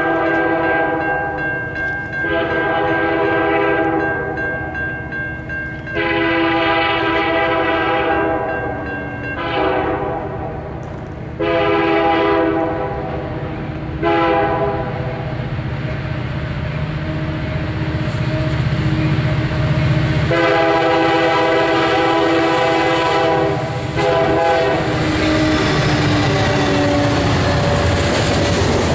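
A freight locomotive's multi-tone air horn sounds a series of long and short blasts for a grade crossing over a rising rumble of the approaching train. Near the end the train reaches the crossing and its cars clatter past on the rails.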